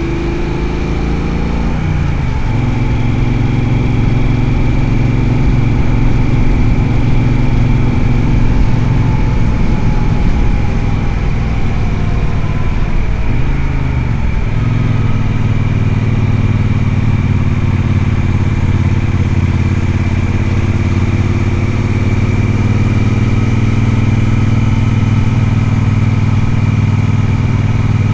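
Triumph Speedmaster's parallel-twin engine running steadily while the motorcycle is ridden, the engine note shifting abruptly about two seconds in and again around the middle.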